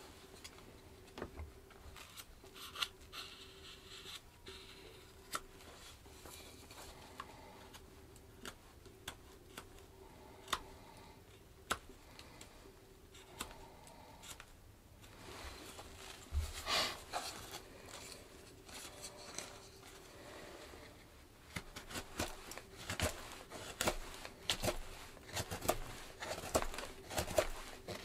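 Freshly sharpened Mora Companion knife whittling a seasoned yew blank: scattered short, sharp snicks of the blade cutting wood, coming faster and louder in the last several seconds.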